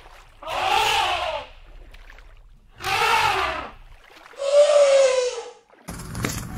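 Elephants trumpeting: three calls about a second apart, each rising and then falling in pitch, the last one lower. Near the end a scratchy crackling and clicking starts.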